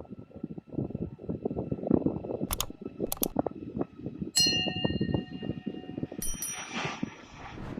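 Gusty rumble of wind on the microphone, broken by a few sharp clicks. About four seconds in, a bell-like ringing tone starts sharply and lasts nearly two seconds, followed by more clicks.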